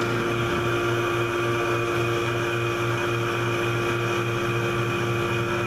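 Electric vacuum pump running steadily with a pulsing low hum and a steady tone, pulling vacuum on the actuator feed limit circuit of a 4L60E transmission valve body.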